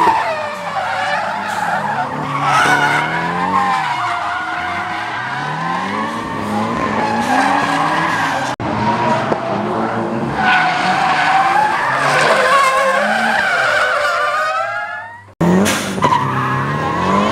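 Nissan 350Z drifting, its engine revving up and down through the slides over loud tyre squeal. The sound breaks off sharply twice, about halfway through and near the end, then picks straight back up.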